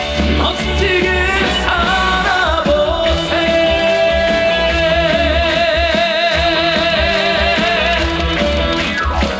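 The closing bars of a Korean trot song performed live with the band backing: a melody line steps downward, then one long wavering note is held for about six seconds before the song ends.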